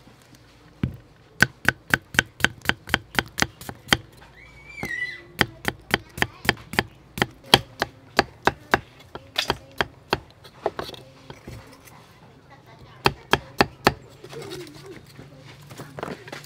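Cleaver chopping cucumbers on a wooden chopping block: rapid, even knocks about four or five a second. They stop around ten seconds in and resume briefly a few seconds later.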